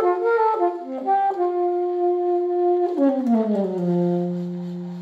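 A solo saxophone playing a short unaccompanied phrase: a few quick falling notes, one long held note, then a slide down to a low note held and fading at the end.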